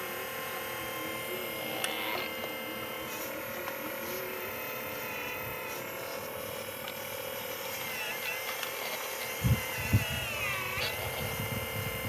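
Radio-controlled scale Volvo excavator's small electric motors whining steadily as the arm and bucket work, the pitch shifting a few times. Two sharp low thumps come about nine and a half and ten seconds in.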